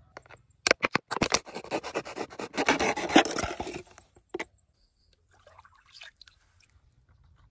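A couple of sharp clicks, then about three seconds of dense crackling and scraping from a thin plastic water bottle being handled, with a last click and faint rustles later.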